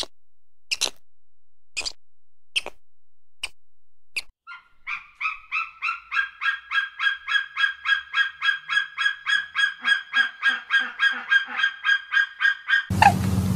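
A bird gives sharp single calls about once a second, then breaks into a long, rapid run of repeated calls, about three or four a second. Near the end it cuts abruptly to steady low background noise with different bird calls.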